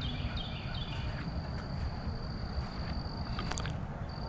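Steady, high-pitched insect trill that breaks off for a moment near the end and then starts again, over a low rumbling background noise.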